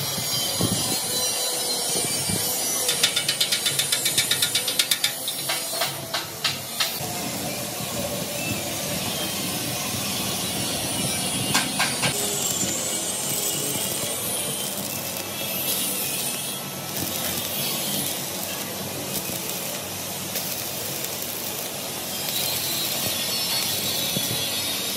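Metal workshop machinery running with a steady hiss, and a rapid run of knocks about five a second for a couple of seconds near the start.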